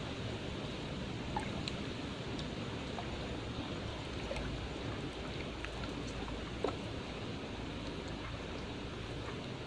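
Steady rush of flowing water, with a few faint scattered clicks.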